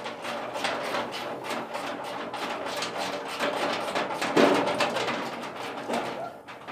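Socket ratchet clicking rapidly as a loose bolt is run off by hand.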